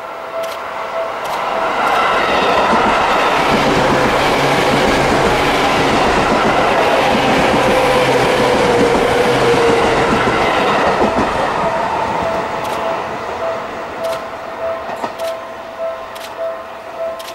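Seibu 10000 series limited express train passing close by, wheels clicking over the rail joints. The rumbling rush swells over the first two seconds, holds loud for about eight seconds with a falling whine near the middle, then fades as the train moves off.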